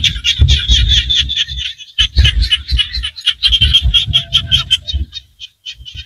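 Chorus of small frogs calling from a rice paddy: many rapid, high-pitched, clicking calls overlapping. The chorus breaks off briefly about two seconds in and thins near the end, over an uneven low rumble.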